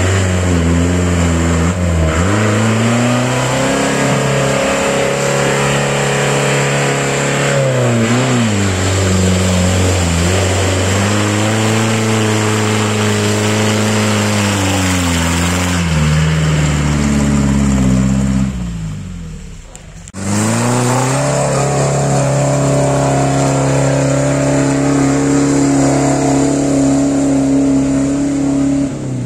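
An ARO off-roader's engine revs up and down again and again while it churns through a deep mud hole. About two-thirds of the way in it drops away sharply for a moment, then comes back and holds steady at higher revs.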